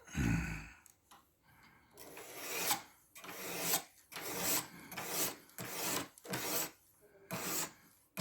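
An 800-grit diamond stone on a guided knife sharpener rasping along the edge of a 14C28N steel blade in steady sharpening strokes, a little over one a second, starting about two seconds in. A short low thump comes right at the start.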